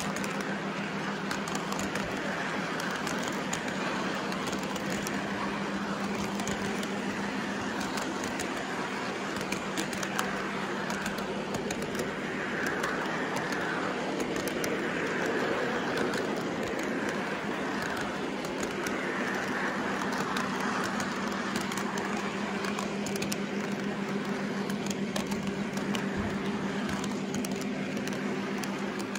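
O-gauge model freight cars rolling past on three-rail track: a steady clatter of wheels over the rail joints with a constant low hum.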